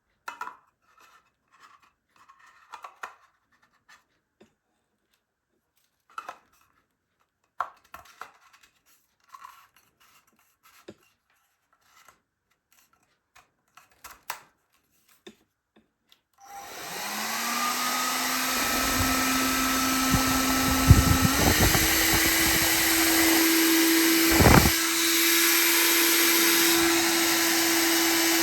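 Scattered light handling clicks, then a Xiaomi Mi Ionic H300 hair dryer switched on: its fan motor spins up to a steady airy whoosh with a humming tone, the pitch stepping up about five seconds after start-up as it changes to a higher speed, with a brief knock a few seconds later.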